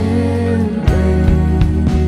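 Live worship band playing: women singing a slow melody over acoustic guitar, bass guitar and drums, with the drum hits coming in from about a second in.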